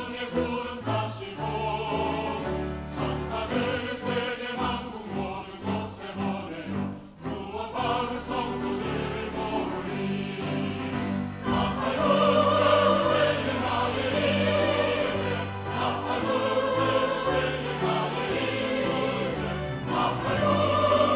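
Large mixed church choir singing a hymn anthem with string ensemble accompaniment. The sound swells louder a little past halfway.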